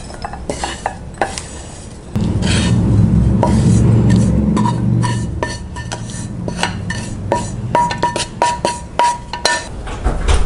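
A wooden spatula scrapes and knocks crumbly roasted gram-flour laddu mixture out of a metal pan into a glass bowl. From about two seconds in there is a low rumble for a few seconds. Near the end comes a quick run of ringing clinks of the pan against the bowl.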